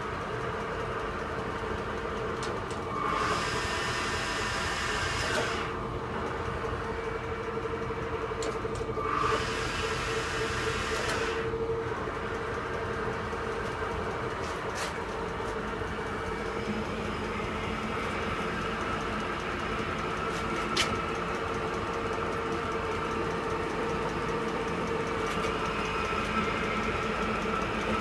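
Boley 5LZ toolroom lathe running with a steady hum as the workpiece spins. Twice, a few seconds in and again about nine seconds in, a hiss rises over the hum for about three seconds as the tool cuts, and there are a couple of sharp clicks later on.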